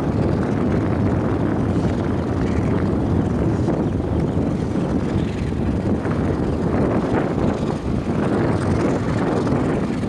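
Diesel locomotive running steadily as it hauls a freight train of tank wagons, a continuous low rumble.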